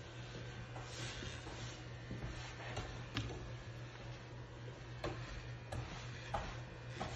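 Hair being cut with scissors: a few short, sharp snips spaced irregularly, with soft rubbing of fingers and comb through the hair, over a low steady hum.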